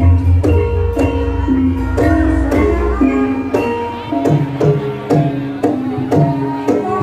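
Javanese gamelan ensemble playing: bronze metallophones are struck about twice a second, each note ringing on, over hand drums. A low rumble under the first half stops about three seconds in, and lower notes come in after that.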